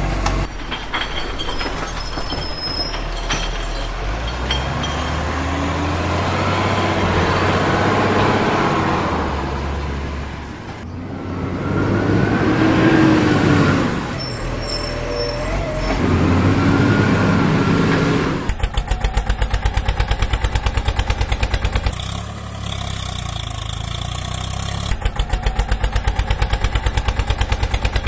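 Heavy diesel vehicle engine sounds, laid over the toy footage: a truck engine straining and revving, rising and falling in pitch. About two-thirds of the way in it changes to a fast, even diesel chug, which breaks off briefly and then resumes.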